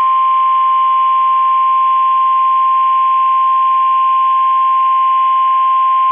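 NOAA Weather Radio 1050 Hz warning alarm tone: a single loud, steady tone held unbroken over a faint radio hiss. It signals that a warning message is about to be broadcast.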